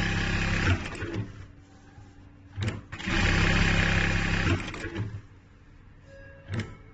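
ZOYER ZY1968 computerized lockstitch sewing machine stitching at speed in two bursts of about a second and a half each, with a sharp click between them and another near the end.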